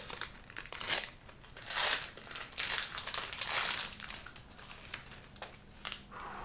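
Foil wrapper of a Magic: The Gathering Double Masters box-topper booster pack crinkling and rustling in irregular bursts as it is torn open and the cards are slid out.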